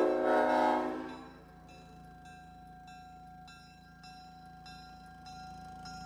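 Leslie S5T five-chime air horn, with bronze tabs, ending a blast: the chord dies away over about the first second. After that come only faint, high ringing tones.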